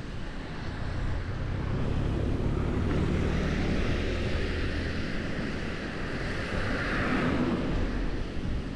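Wind buffeting the action camera's microphone on a moving bicycle, with low road rumble underneath. A hiss swells and peaks about seven seconds in, then eases.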